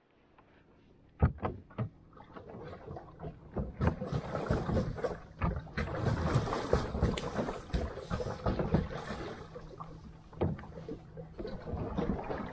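Plastic pedal boat on the water: a run of irregular knocks and clunks from the hull, with a louder stretch of hiss in the middle.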